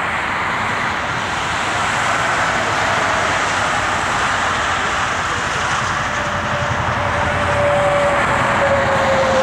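Steady rush of highway traffic mixed with a long freight train rolling by, growing a little louder from about six seconds in. A whine slowly falls in pitch from about six seconds in.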